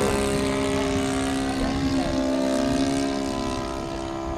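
Radio-controlled model airplane's engine and propeller running in flight: a steady droning note that rises slightly at the start and then holds even.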